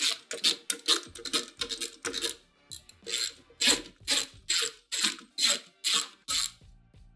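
Hand ratchet clicking in quick back-and-forth strokes as a 19 mm socket unscrews a golf cart's front hub nut. The strokes come fast and uneven at first, then settle to about two a second.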